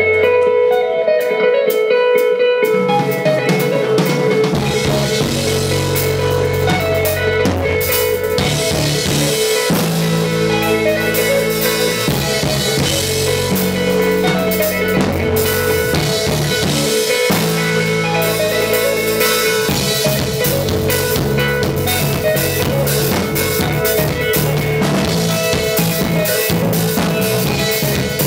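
Live instrumental rock band playing: electric guitar, bass guitar and drum kit, with the low end filling in a few seconds in.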